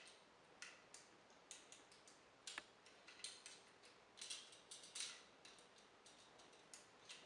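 Faint, scattered clicks and ticks of a plastic action figure's hinged fingers and thumb being moved and closed around its gun, with one sharper click about two and a half seconds in.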